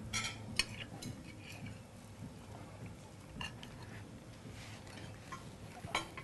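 Fork and knife clinking and scraping on a ceramic plate while someone eats fish, as a few faint separate clicks.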